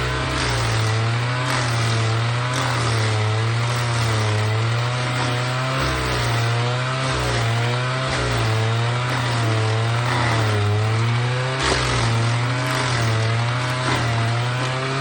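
Alpine Magnum stump grinder's engine running hard while its Greenteeth cutter wheel grinds into a stump. The engine pitch wavers up and down about once a second as the load on the wheel changes, over a steady noisy grinding hiss.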